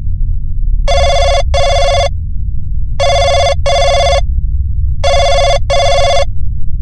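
Payphone ringing in the British double-ring pattern: three pairs of rings about two seconds apart. A steady low rumbling drone runs underneath.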